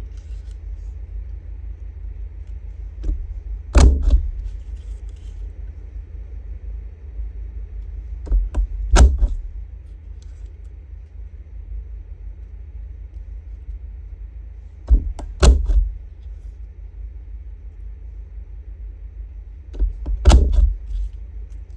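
A plastic handheld border punch pressed down through a cardstock strip four times, about every five or six seconds. Each stroke is a lighter click followed by a loud clunk, over a steady low hum.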